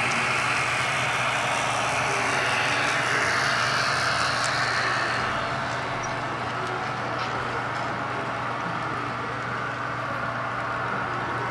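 HO scale model freight train running past on its track: a steady rolling rumble and hiss of the locomotives' motors and metal wheels on the rails. It eases off a little about five seconds in as the diesel locomotives give way to the trailing autorack cars.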